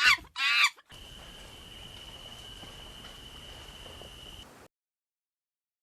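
Two loud, high squealing animal calls in quick succession, each falling in pitch, followed by a few seconds of steady background hiss with a thin, steady high-pitched tone that cuts off suddenly.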